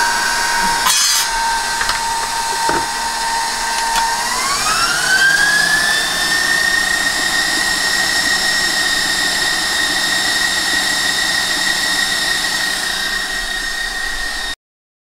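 KitchenAid stand mixer running with its wire whisk beating egg whites toward stiff peaks: a steady motor whine that, about four seconds in, rises in pitch as the speed goes up, then holds steady. A click about a second in; the sound cuts off suddenly near the end.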